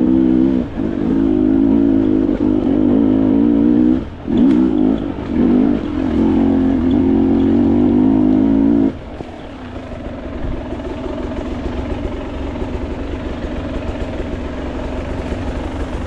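Dirt bike engine running hard under throttle, with brief throttle-offs a little after four and five seconds. About nine seconds in it drops to a lower, steady running.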